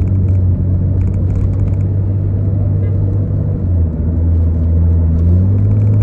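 Car engine and road noise heard from inside the cabin while driving, a steady low drone. Its pitch drops slightly about halfway through and rises again near the end.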